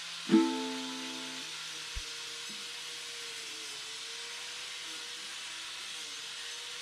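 Angle grinder with a carving disc shaping a wooden log: a steady grinding hiss with a faint wavering whine. A single plucked string note from background music rings out near the start.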